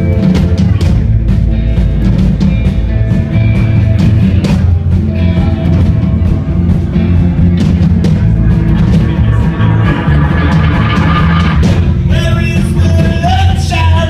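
Loud live rock band music with heavy bass, a steady drum beat and sustained chords. A wavering melodic line comes in near the end.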